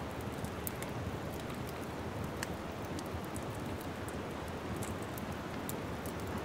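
Wood fire crackling: a steady low rustle of flames with scattered sharp pops and snaps, one of them louder about two and a half seconds in.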